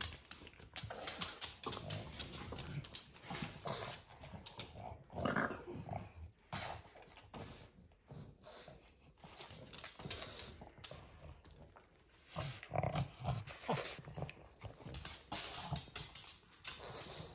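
Pugs eating banana pieces off a blanket: irregular wet chewing, mouth smacks and nose-down sniffing and snuffling.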